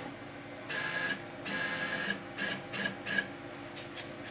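Z-axis stepper motor of a 6090 CNC router whining in short jog moves as the tool is lowered toward the work surface to set Z zero. There are two longer moves, then three quick short ones as it closes in.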